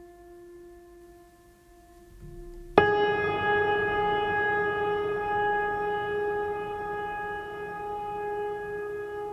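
Background music: a quiet held drone, then about three seconds in a louder sustained chord starts with a sharp attack and rings on.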